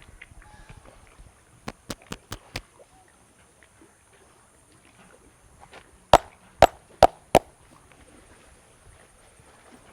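Head massage by hand: a quick run of five sharp cracks, then after a pause four louder sharp slaps about half a second apart.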